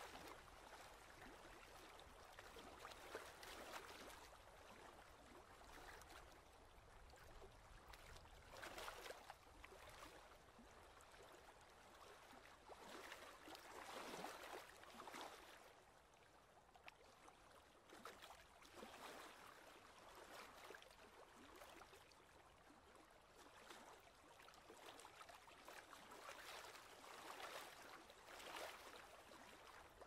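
Small waves lapping and gurgling against a rocky lakeshore, faint, swelling and fading every few seconds.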